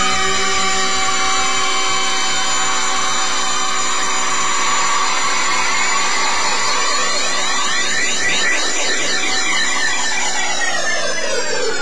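Electronic music: a held synthesizer chord with a sweeping, swirling shimmer. Near the end the whole chord starts to slide down in pitch, like a tape slowing to a stop.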